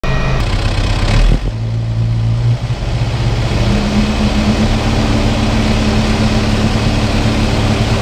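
Kubota tractor's diesel engine running loud and steady, with an abrupt change in the sound about a second in.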